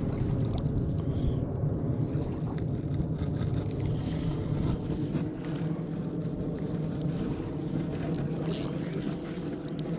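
Boat engine running steadily at low speed: a continuous low hum, with a brief higher hiss about eight and a half seconds in.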